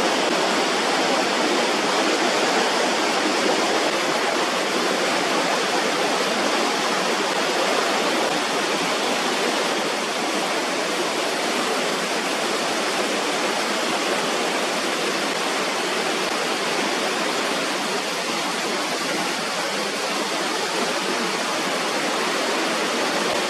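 Waterfall crashing down, a steady dense rush of falling water.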